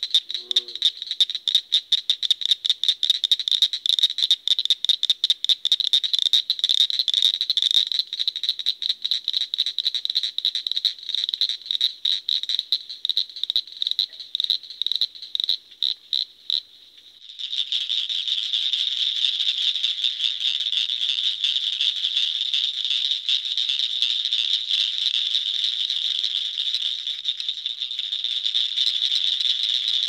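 Cricket frog calling: a run of sharp, high clicks, like pebbles tapped together, that comes faster and faster. Just past halfway it changes to a dense, unbroken chorus of clicking.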